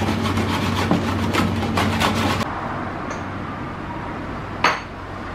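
Steady low kitchen hum under a rapid run of light clicks and clatter at the counter, which stops abruptly after about two and a half seconds. Quieter room tone follows, with one short knock near the end.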